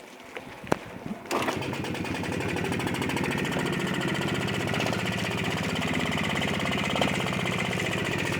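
A few clicks, then a Pannonia 250 motorcycle's single-cylinder two-stroke engine catches about a second in and runs steadily with a fast, even beat.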